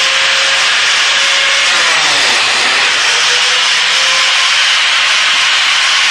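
Biscuit joiner's electric motor running steadily at full speed: a loud, even rushing noise with a faint steady whine.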